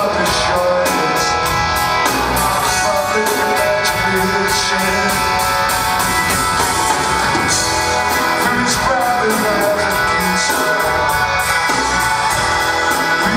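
Live rock band playing, with electric guitar to the fore over bass guitar and drums, and a cymbal keeping a steady beat at about four strokes a second.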